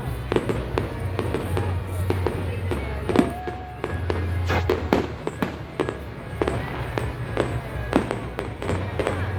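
Fireworks exploding in an irregular, rapid series of bangs and crackles, with the loudest bangs about three seconds in and again near eight seconds. Music plays underneath.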